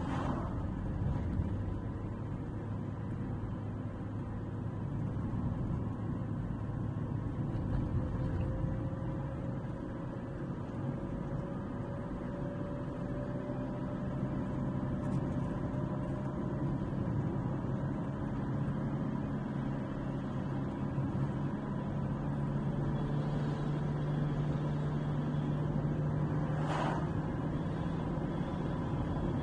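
A car's engine and tyre noise heard from inside the cabin while driving on a paved road: a steady hum whose engine tone drifts slowly up and down in pitch.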